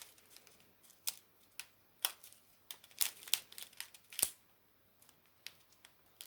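Scattered light clicks and taps of small plastic bags of diamond-painting drills being handled, with an occasional faint crinkle.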